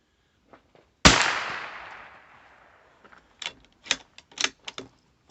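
A single .22 LR rifle shot from a Savage B22 Precision, its echo dying away over about two seconds, followed by a run of short sharp clicks.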